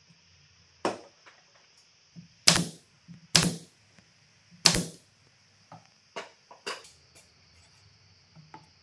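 A series of sharp knocks: four loud strikes spaced about a second apart, then a run of lighter taps and clicks. This is workshop handling of wood or tools.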